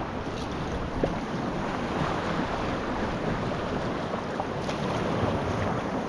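Steady wind noise on the microphone over sea water washing around a sea kayak.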